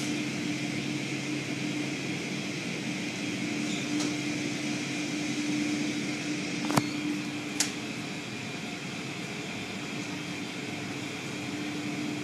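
Automatic car wash running, heard from inside the car: a steady drone of machinery and water spray as the soft-cloth curtains and brushes wash over it. There are two sharp clicks about seven seconds in.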